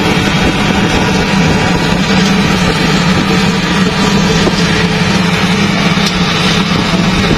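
LiuGong wheel loader's diesel engine running steadily as the loader pushes a pile of dirt with its bucket.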